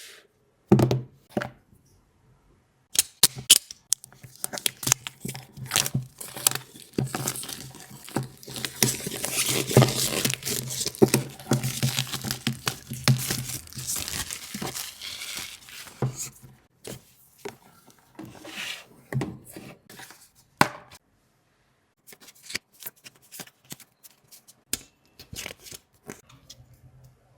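Smartwatch packaging being unboxed: tearing and crinkling of wrapping, with irregular clicks and taps as the box and its contents are handled. The tearing and rustling are densest in the middle.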